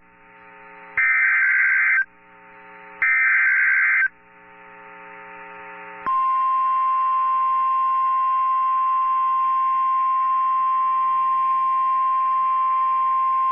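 Emergency Alert System signal: two harsh, buzzing one-second bursts of SAME digital header data, about a second apart. About six seconds in, the steady 1050 Hz weather radio warning alarm tone begins and holds.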